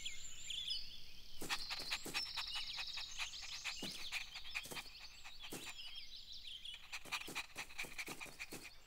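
A cartoon puppy panting, over a background of birds chirping and trilling.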